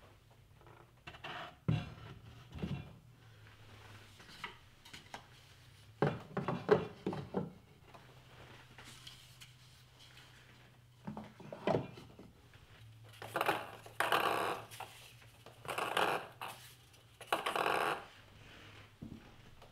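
Table tennis paddles being hung on the wooden pegs of a wall-mounted holder and ping pong balls set on its wooden shelf: a series of light knocks, taps and rubbing handling sounds, louder and longer in the second half. A faint low hum runs underneath.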